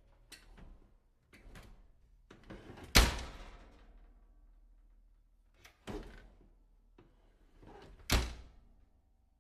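A door being worked open and shut: a few light latch and handle clicks, then the door slamming shut about three seconds in, a lighter thud near six seconds, and a second slam about eight seconds in.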